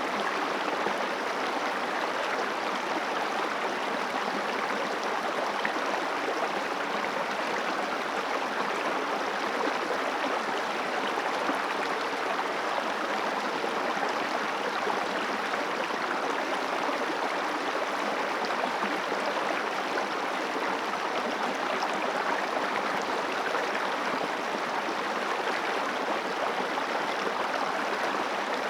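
Water of a river flowing over stones, a steady rushing and babbling with no change in level.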